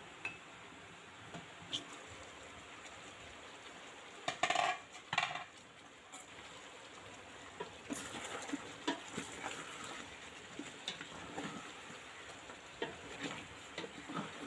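A glass pot lid is lifted off a metal cooking pot with two loud clatters about four seconds in. From about eight seconds in, a spoon stirs and scrapes beef and potato curry in the pot with irregular clinks, over a faint sizzle.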